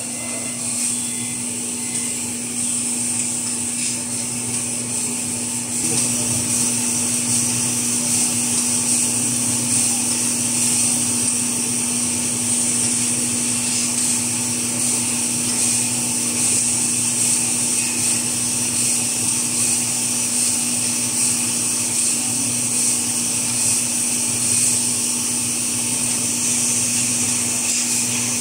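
Kitchen towel paper rewinding and log-saw machinery running steadily, a constant hum under a high hiss. It gets a little louder about six seconds in.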